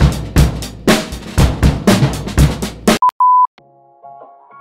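Drum-kit music, busy kick and snare hits, cuts off abruptly about three seconds in. Two short steady beeps follow, the second longer and loud. A quiet melody of held notes then begins.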